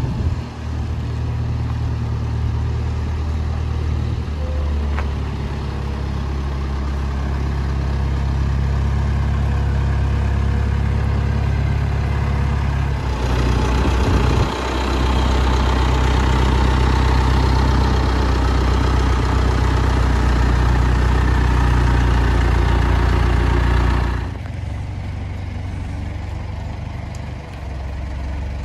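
Farm tractor engine running steadily while towing a boat trailer. It gets louder and fuller about halfway through, then drops back to a lower, quieter note a few seconds before the end.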